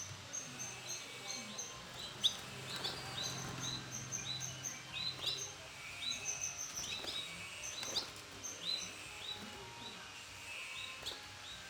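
Canaries chirping: short, high call notes repeated several times a second, with a few sharp clicks in between.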